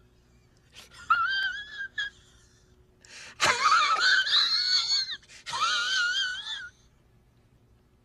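A man's high-pitched, wheezing laugh in several bursts, its pitch wavering up and down. The loudest stretch is in the middle, and it stops about seven seconds in.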